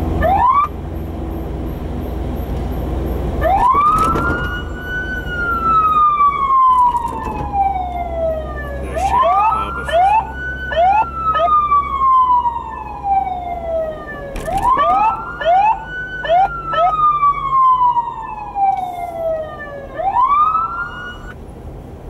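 Police siren on a Jeep wailing: each cycle climbs quickly, then glides slowly down over about five seconds. Three full cycles sound, with a brief rise right at the start and a final rise that cuts off near the end. Quick short whoops burst in at the start of two of the cycles.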